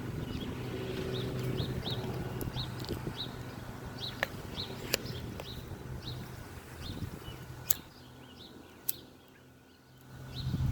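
Birds chirping over and over in short, high calls, over a low rumble of wind on the microphone that dies away near the end. A few sharp clicks stand out.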